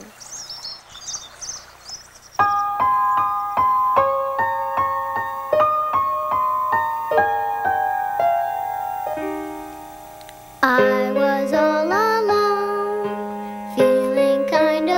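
Birds chirping faintly for the first couple of seconds, then a keyboard starts the gentle intro of a children's song, one note at a time. About ten seconds later fuller accompaniment joins with sustained melody notes over a held bass note.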